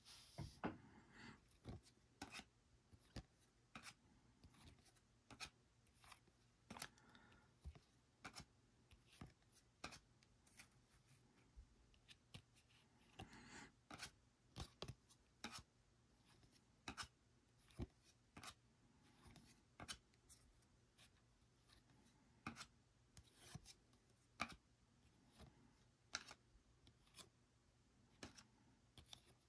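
Stiff chromium-finish trading cards flipped through by hand: faint, irregular clicks and snaps as each card is slid off the stack, with now and then a soft rub of card against card.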